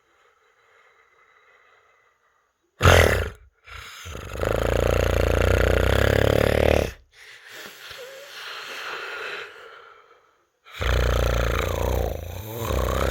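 Loud human snoring. A sharp snort comes about three seconds in, then a long loud snore, a quieter breath, and another loud snore from about eleven seconds in.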